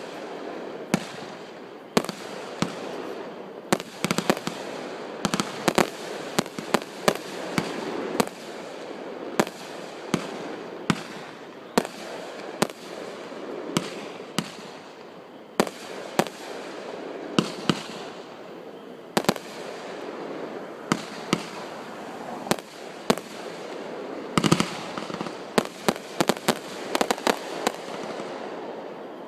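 Aerial consumer fireworks going off: a run of sharp, irregularly spaced bangs from shells bursting, over a continuous noisy background. The bangs come thickest and fastest in a rapid volley about 25 seconds in.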